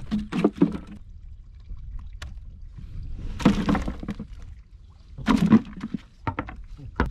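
A freshly caught fish thrashing in a woven palm-leaf basket on the deck of a wooden boat, and being pinned down with a stick: three bursts of rustling and knocking, then a few sharp knocks near the end, over a steady low rumble of water against the hull.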